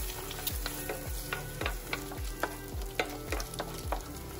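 Wooden spatula scraping and tapping a nonstick frying pan as frying eggs are broken up and stirred into scrambled eggs, with a steady sizzle from the hot pan underneath.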